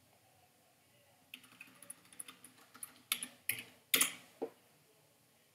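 Computer keyboard typing: a quick run of keystrokes starting about a second in, with a few louder key strikes toward the end.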